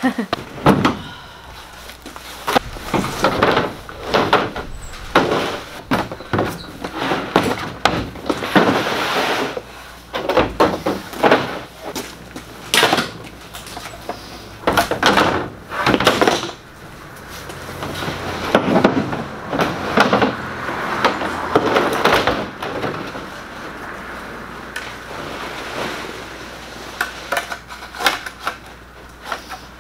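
Irregular knocks, clunks and rattles of gear being handled and set down: chainsaws and plastic fuel cans loaded onto a pickup truck's tailgate and bed.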